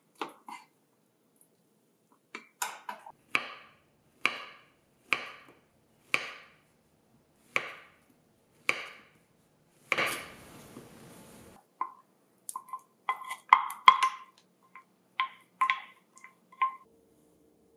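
Kitchen knife slicing through bananas onto a wooden cutting board, the blade knocking the board about once a second, eight times or so. A short rustle follows, then quick clicks and taps of a wooden spoon scraping caramel from a pot into a metal cake pan.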